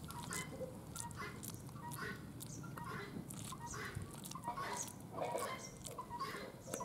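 Chickens clucking and small birds chirping, a steady scatter of short calls throughout.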